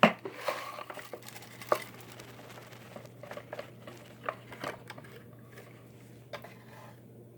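Scattered light clicks, taps and rustles of something being handled, the sharpest click right at the start, over a faint steady low hum. No vacuum motor is running.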